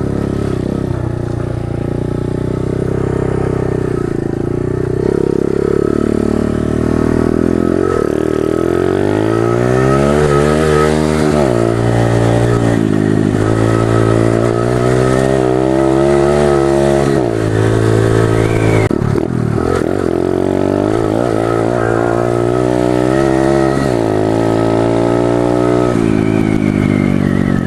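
Pit bike's small single-cylinder engine being ridden hard. Its pitch climbs under throttle and drops off again, over and over.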